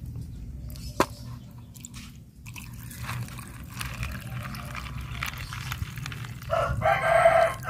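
Light handling noises with a sharp click about a second in, then a rooster crowing near the end.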